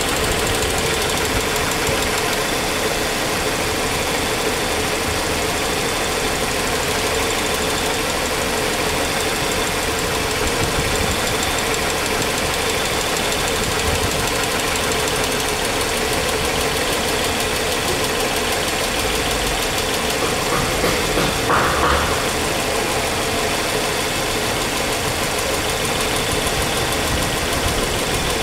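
Ford Ranger engine idling steadily with a strong ticking-knocking noise, apparently from the lifters (tappets). There is a short louder noise about three-quarters of the way through.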